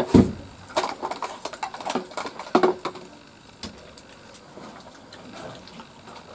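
People eating by hand at close range: chewing and lip-smacking with many small clicks and ticks, busiest in the first three seconds and fainter after.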